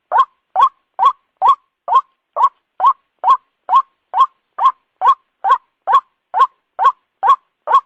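White-breasted waterhen call, a short rising note repeated at an even pace about twice a second, played as a bird-lure recording.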